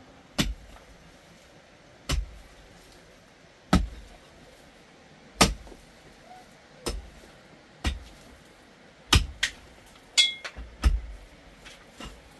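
Long-handled digging tool striking packed earth and rubble, a dull thud with a sharp click at each blow, about one blow every second and a half and coming faster near the end. One blow about ten seconds in gives a short metallic ring, metal hitting stone.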